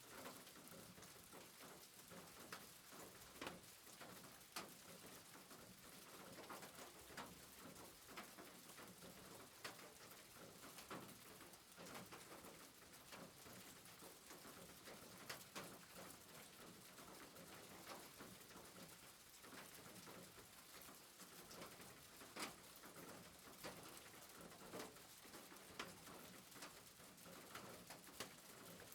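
Faint rain falling on a roof: a steady hiss of rainfall with irregular sharp taps from single drops, a few of them louder.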